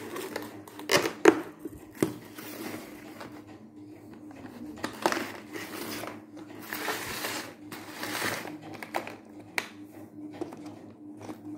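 Clicks and knocks of a red plastic art-set case being unlatched at its snap clasp and opened, with a few sharp clicks about a second in and bursts of handling rustle later. A faint steady hum runs underneath.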